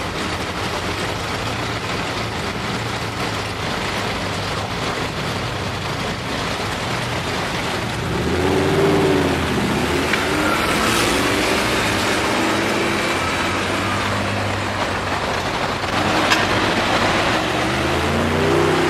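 An Audi R8 accelerating in city traffic, over steady street traffic noise. Its engine note rises as it pulls away about eight seconds in, and an engine revs up again near the end.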